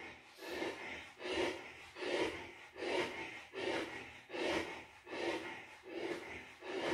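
A man breathing hard and rhythmically through a back-extension exercise, a short breath about every three-quarters of a second.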